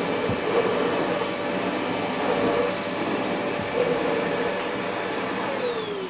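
Vax Power Stretch Pet cylinder vacuum cleaner running with its combination floor head on carpet: a steady rush of suction with a high whine. Near the end the motor winds down, its whine falling in pitch.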